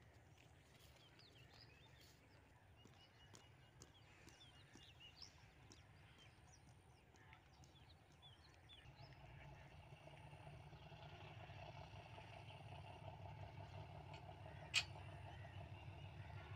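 Birds chirping over a faint low rumble. From about nine seconds in, the rumble of an approaching diesel locomotive grows steadily louder. One sharp click near the end.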